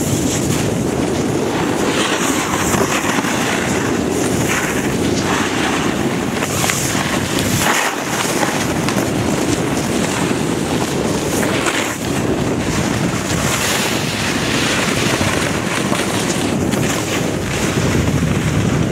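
Loud, steady rush of wind buffeting a camcorder microphone while riding downhill on a snowboard, mixed with the scrape of snowboard edges over packed snow, which swells briefly now and then.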